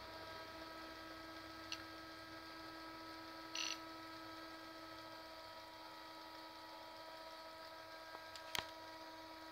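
Faint steady hum made of several pitched tones. A light click comes about two seconds in, a short scratchy rustle comes near four seconds, and a sharper click comes near the end.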